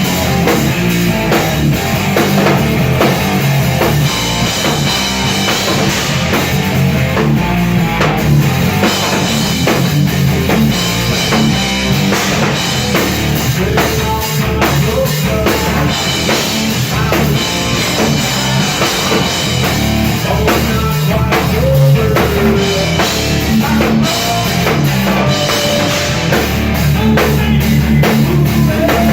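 Live rock band playing loud: drum kit, electric guitar and bass.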